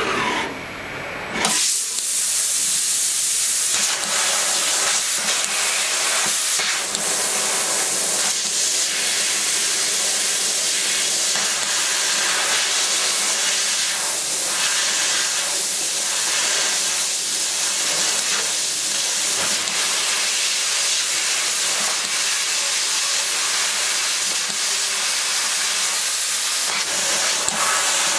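Fiber laser cutting head cutting sheet metal, its assist gas jet hissing loudly and steadily through the nozzle; the hiss starts suddenly about a second and a half in as the cut begins.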